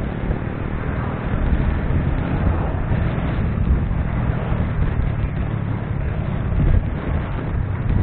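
Wind buffeting the microphone of a motorcycle-mounted camera while riding, over the steady low hum of the motorcycle's engine and the road.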